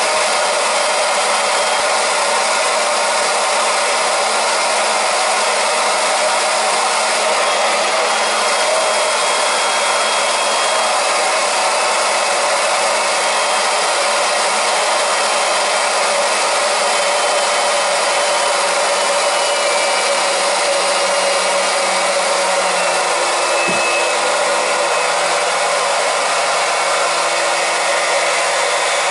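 Small electric transfer pump running steadily, pushing propylene glycol antifreeze through hoses into a hot-water heating system while air is purged from the loop. About five seconds from the end there is a click and a small shift in the pump's tone.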